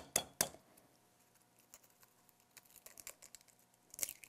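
Light clicks and small taps of a spoon and an egg against a glass mixing bowl, with one sharper knock near the end as an egg is cracked on the bowl.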